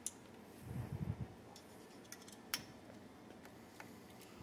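Faint, scattered clicks and taps of small tools being handled at a workbench, with a brief soft low thudding about a second in.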